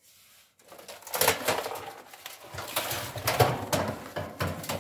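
Metal-framed barred panel being moved and handled: a run of irregular knocks and rattles that starts about a second in.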